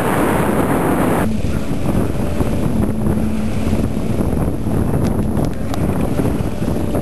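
Wind buffeting the microphone over water rushing along the hull of a sailboat under sail. The hiss thins out suddenly about a second in, and a faint steady hum runs underneath.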